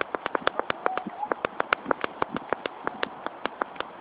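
A fast, steady run of sharp clicks, about nine a second.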